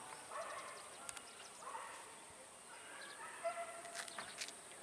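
A rooster crowing faintly several times, with one longer, held crow in the second half.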